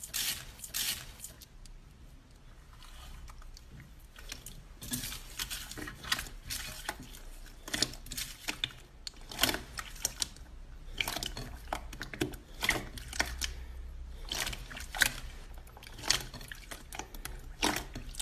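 Thick gold slime being pressed, stretched and kneaded by hand in a glass bowl: irregular sticky crackles and clicks, coming thick and fast through most of the stretch.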